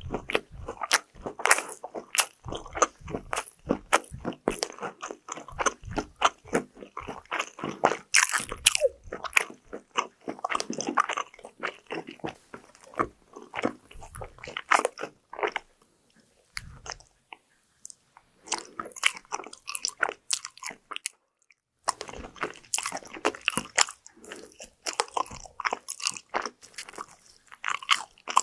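Close-miked crunching and chewing of crispy fried food, sharp crunches coming in quick irregular runs. The chewing thins out for a couple of seconds past the middle and stops dead for a moment before starting again.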